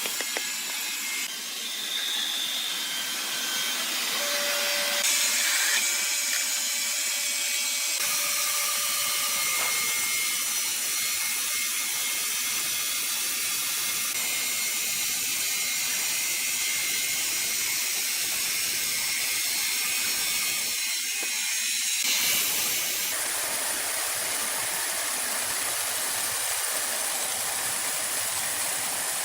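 Sawmill machinery running and saws cutting wood: a steady, hissing mechanical noise that changes abruptly several times, as between separate cuts of the machine at work.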